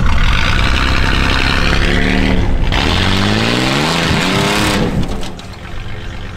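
Rock crawler's engine revving hard, its pitch climbing and wavering, with the hiss of its tires spinning and throwing dirt on a steep climb; the throttle drops off sharply about five seconds in.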